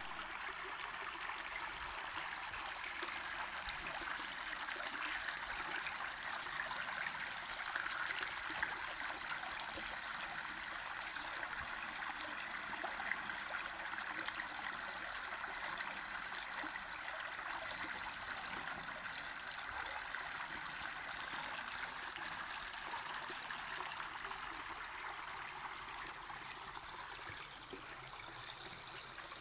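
Water flowing steadily in a natural stream, with a faint steady high tone above it and a couple of brief ticks about two-thirds of the way through.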